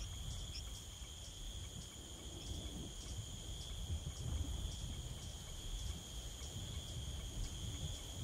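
Insect chorus: a steady high shrill drone with short chirps about twice a second, over a low rumble.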